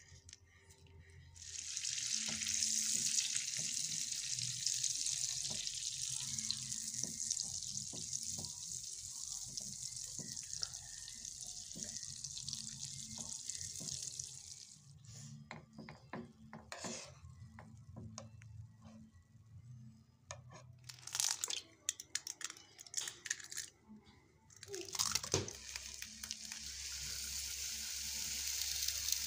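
Cooking preparation sounds: a long, steady pouring hiss for about thirteen seconds, then a metal spoon clinking and scraping through a thick batter, and near the end granulated sugar pouring into a plastic blender jar with a steady hiss.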